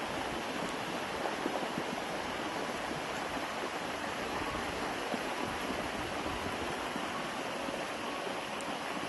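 Muddy flash-flood water rushing fast down a street: a steady, even rush of water.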